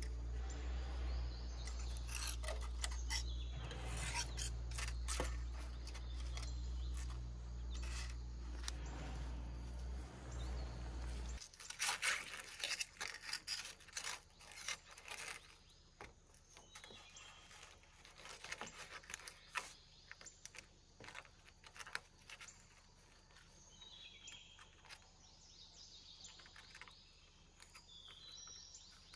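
Pliers twisting tie wire around a bamboo rail and wooden stake: short clicks and scraping. A steady low rumble underneath stops abruptly about eleven seconds in. Small birds chirp near the end.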